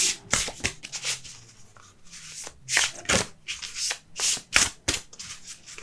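A deck of large, thin oracle cards being hand-shuffled: a quick, uneven series of card-on-card swishes and snaps.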